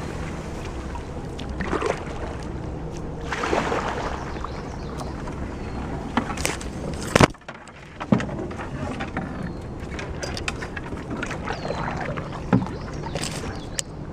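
Canoe being paddled: repeated paddle strokes swishing through the water, with a few sharp knocks and clicks, the loudest about seven seconds in as the canoe passes under overhanging branches.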